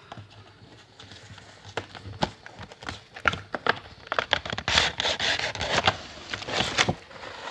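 Headphone box being opened and handled: irregular scraping, crinkling and clicking of the packaging, busier and louder from about three seconds in.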